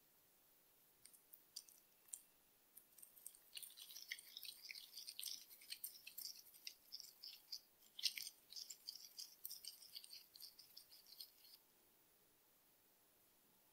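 Gloved hands kneading and squeezing crumbly cookie dough in a glass bowl: quick runs of soft crackles and small clicks as the dough crumbles and the gloves rub, starting about a second in and stopping near the end, with one sharper click just past the middle.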